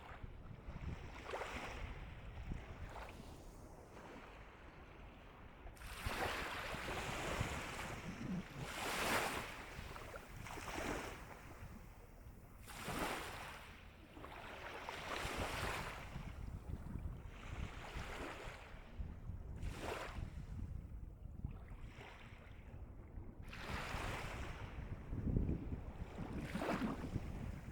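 Calm sea waves breaking and washing up the shore, with a fresh surge of surf every one to three seconds.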